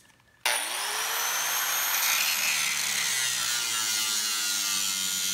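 Corded angle grinder, fitted with what the owner thinks is a masonry cutting wheel, switching on about half a second in. Its whine rises as the motor spins up, then it runs steadily, grinding through the steel shell of a 1999 GMC Yukon's stock muffler.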